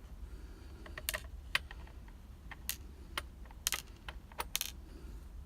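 Sharp, irregular clicks and taps of small metal tools and padlock parts being handled, about a dozen over a few seconds.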